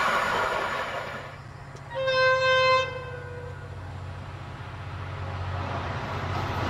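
Diesel locomotive horn sounding one blast of about a second, its pitch sagging slightly as it dies away. The low drone of the approaching locomotive's engine and train then grows steadily louder. Before the horn, the rolling noise of a passing train fades out.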